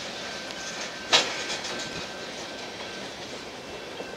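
Freight train of empty oil tank cars rolling past, a steady rumble of wheels on rail with a faint high whine, and one sharp clank about a second in.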